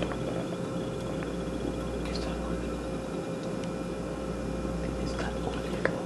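Steady low room hum with a faint steady tone, and a light click near the end; the oil being poured makes no clear sound.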